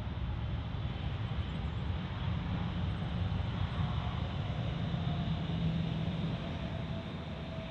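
Jet airliner engines running, a steady rumble with a faint whine that falls slowly in pitch over the second half.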